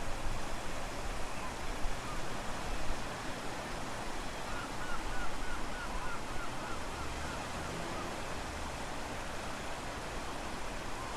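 Steady rush of strong wind and ocean surf at low tide. In the middle comes a run of about ten quick, high chirps over a few seconds.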